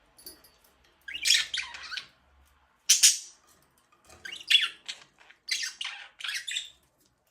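Pet budgerigars chirping in short bursts of quick, harsh calls with brief pauses between, a longer run of calls in the second half.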